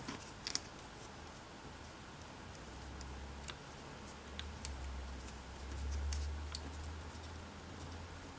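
Origami paper being folded and creased by hand: scattered small crinkles and clicks of the paper, with a low rumble that swells about six seconds in.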